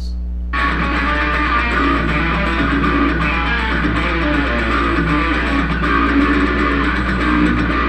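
A heavy metal riff on electric guitar, played back through a speaker, starting about half a second in. It is a pedal-tone riff that keeps returning to the same open low root note.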